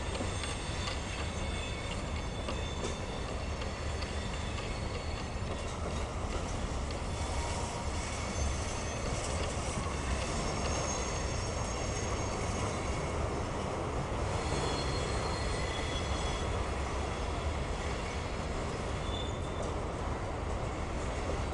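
Mixed freight train of tank cars, hoppers and autoracks rolling past: a steady rumble of steel wheels on rail, with thin high wheel squeals coming and going over it.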